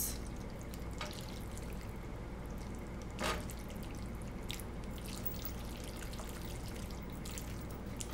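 Sauce-coated fettuccine being tossed with metal tongs and a spatula in a skillet of creamy alfredo sauce on low heat: wet, sticky squelching and bubbling, with a few clicks of the tongs, the loudest about three seconds in.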